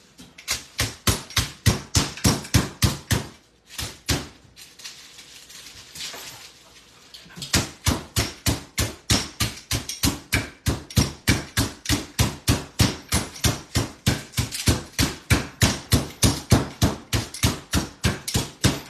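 Wooden rolling pin pounding chicken breasts flat through wax paper on a countertop, in steady blows about four a second. The pounding stops for about four seconds near the middle, with one blow in the gap, then resumes.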